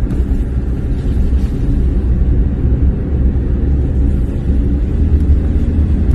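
A car driving over a rough, patched road, heard from inside the cabin: a steady low rumble of engine and tyre noise.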